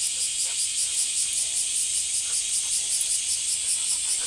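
A chorus of insects shrilling steadily at a high pitch, with a regular pulse several times a second.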